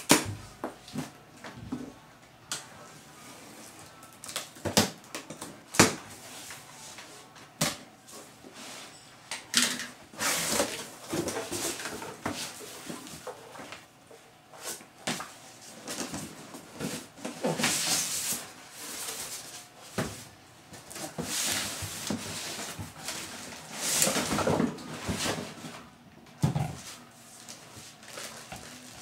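Unpacking a cardboard box: a few sharp snaps as the plastic packing straps are cut with a box cutter, then rustling and scraping of cardboard flaps, paper packing and a plastic bag being handled.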